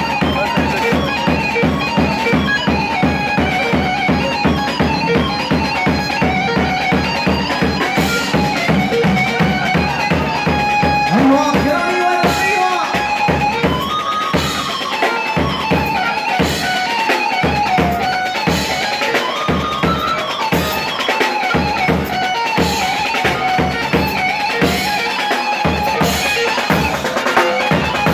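Live Kurdish halay dance music: a loud reedy lead melody over a fast, steady drum-kit beat. About halfway through, the low bass-drum pulse thins into separate, spaced kicks.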